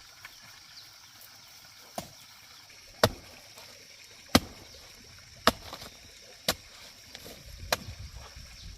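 A series of six sharp knocks, roughly one a second, the loudest about three and four seconds in, over a faint steady high hiss.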